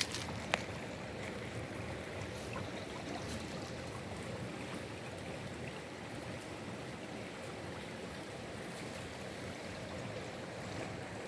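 Water flowing steadily, like a stream running over stones, with a short sharp click about half a second in.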